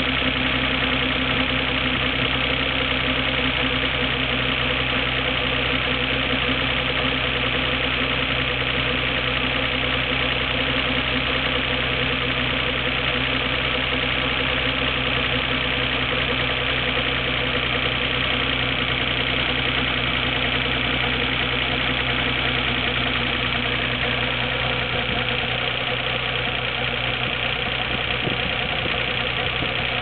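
Nissan Skyline GT-R R33's RB26DETT twin-turbo straight-six idling steadily from a cold start, with the 'gurun-gurun' rumbling abnormal noise that it makes only before it has warmed up. The owner does not know the cause; the water pump and timing belt were recently replaced.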